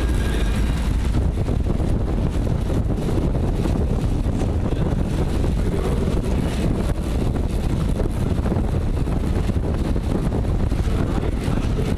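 Steady rush of wind over the microphone of a camera mounted on a track bike moving at race speed, mixed with the hum of tyres on the wooden velodrome boards.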